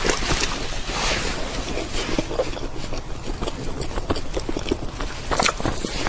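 Close-miked chewing of a soft sweet: wet mouth clicks and lip smacks in a quick irregular patter.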